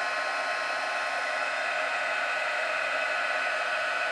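Craft heat gun blowing steadily, a constant whirring hiss with a faint whine. It is heating Tsukineko Amplify puff medium so that it bubbles up into raised texture.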